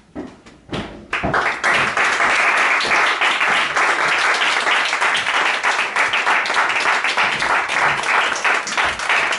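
A small audience clapping, starting about a second in after a few short knocks and then going on steadily.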